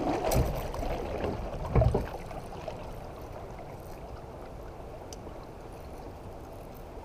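River water splashing and lapping against a kayak, with two louder splashes in the first two seconds, then a steady rush of flowing water.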